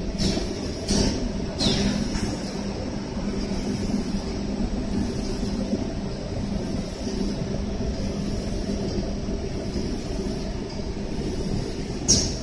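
Automatic spray-coating line running: a steady machine rumble and hum, with a faint high hiss of the spray guns coming and going about every second and a half. Short sharp hisses of air sound three times in the first two seconds and once near the end.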